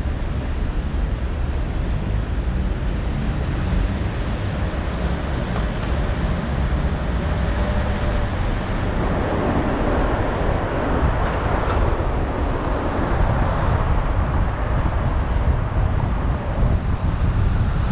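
Car driving through city streets: steady engine and tyre-on-road noise, with a louder swell of noise about ten seconds in.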